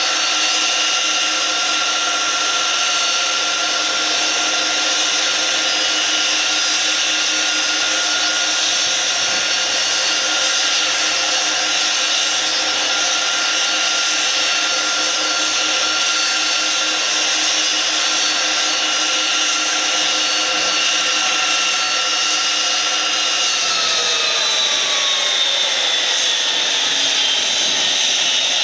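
Pratt & Whitney PW4000-series turbofans of an Airbus A330 idling with a steady whine over a drone. Near the end all the tones slide down together as the engines spool down after shutdown.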